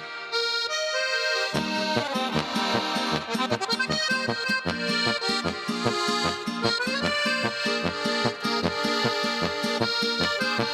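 Background accordion music, a traditional-style tune with sustained chords over a steady pulsing bass. The bass drops out for about the first second and a half while higher notes play alone.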